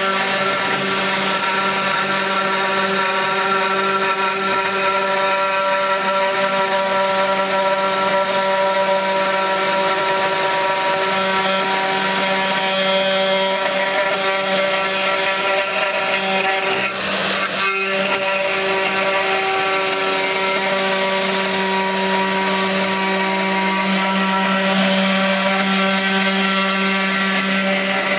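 Desktop CNC router spindle running at a constant high-pitched whine while a 1.5 mm fishtail PCB bit mills shallow passes into aluminium plate. The cutting noise rides over the motor tone and dips briefly about 17 seconds in. The maker finds the machine not quite strong enough for aluminium with this bit.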